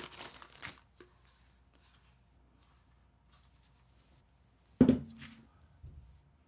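Plastic packaging crinkling for about the first second as power supply cables are handled, then a single sharp knock about five seconds in.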